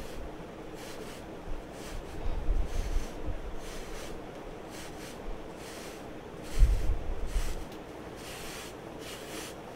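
A hand brush scrubbing back and forth through short dreadlocked hair in quick repeated strokes, a dry rasping rub. A couple of low dull bumps come through, the louder one about two-thirds of the way in.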